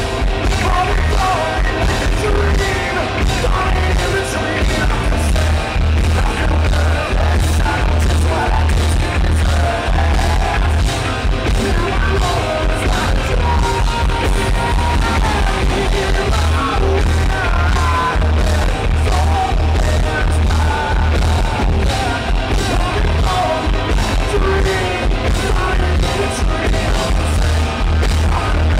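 Live rock band playing: a male lead singer over electric guitars and drums, with a heavy pulsing bass low end, loud and continuous.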